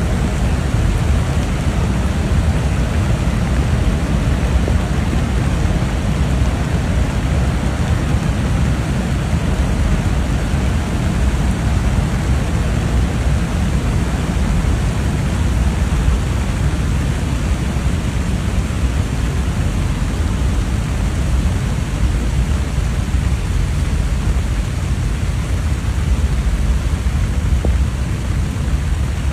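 Heavy downpour: a steady, unbroken rush of rain with no distinct thunderclaps.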